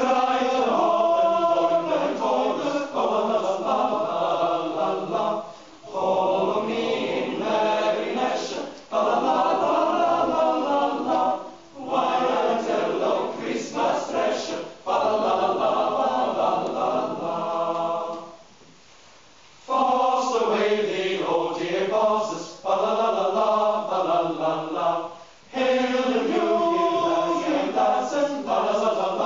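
Choir singing a Christmas carol in phrases with short breaks between them, and a longer pause about two-thirds of the way through.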